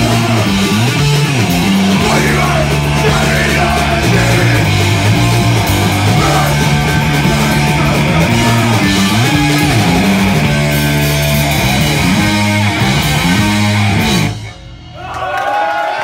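A punk rock band playing live and loud: distorted electric guitars, bass and pounding drums with cymbals, with shouted vocals. The song stops abruptly about a second and a half before the end.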